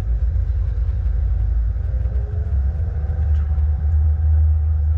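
Low, steady rumble of a Mercedes A250e plug-in hybrid car running, road and engine noise.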